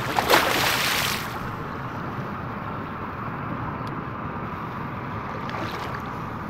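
A hooked muskie splashing and thrashing at the surface next to a landing net, loudest in the first second. After that comes a steady rush of water and wind.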